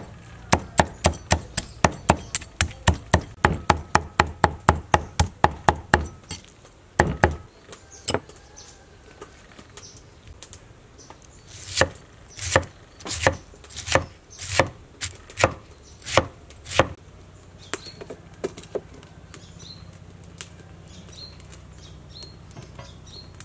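Cleaver chopping rapidly on a wooden board, about three strokes a second, mincing raw fish into paste. Partway through, a slower run of about ten knife cuts through a peeled pineapple on the board, then the chopping stops.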